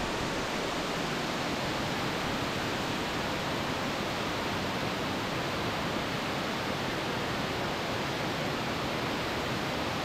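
Amicalola Falls, a tall waterfall cascading down a steep rock face, giving a steady, unbroken rush of falling water.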